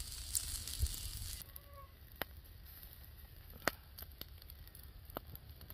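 Satay-coated chicken feet and sausages grilling over a fire: a faint sizzling hiss that stops abruptly about a second and a half in, then scattered sharp crackles and pops.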